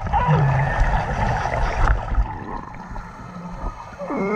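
Underwater water noise, rumbling and gurgling with bubbles, with a brief pitched call near the start and a wavering, bending call near the end, typical of Galápagos sea lions vocalizing underwater.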